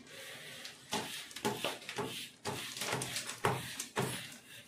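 A stiff hand brush rubbed over a self-adhesive marble-print sheet in quick, repeated scrubbing strokes, about two a second, pressing the sheet flat onto the kitchen slab.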